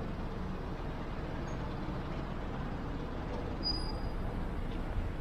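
City street traffic: a steady low rumble of motor vehicles running on the road.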